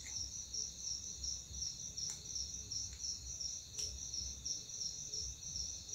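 A cricket chirping steadily in the background, about four or five pulses a second, with a few faint clicks as a piston ring is worked into its groove by hand.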